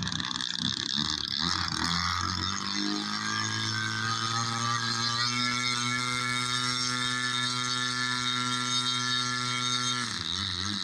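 Radio-controlled Me 163 model's motor and propeller running at a steady pitch that settles in over the first few seconds. Near the end the pitch drops suddenly and starts to waver.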